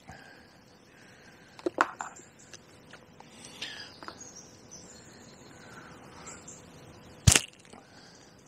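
Fishing tackle handled at the waterside: a pair of small clicks a little under two seconds in, a few faint ticks, then one sharp snap about seven seconds in, the loudest sound.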